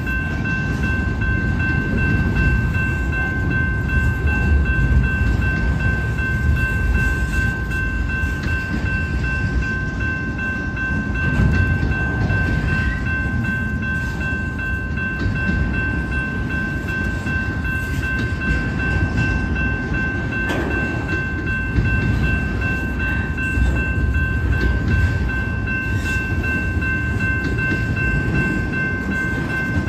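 Double-stack intermodal well cars rolling past: a steady rumble of steel wheels on rail, with a thin steady high whine over it.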